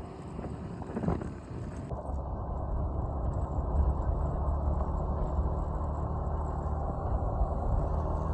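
A vehicle engine running steadily while travelling along a road, with a brief louder sound about a second in.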